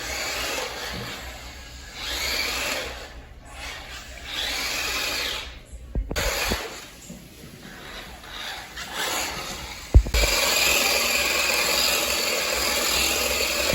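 Small electric motor of a 1:18-scale RC drift car whining in short bursts as the throttle is worked, its pitch rising and falling with each burst. About ten seconds in, after a sharp knock, it runs steadily and louder.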